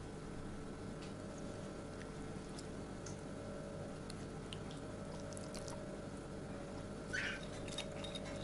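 Silicone basting brush dabbing and smearing sauce over roasted pork ears: faint wet daubing with light ticks, and a slightly louder tap about seven seconds in.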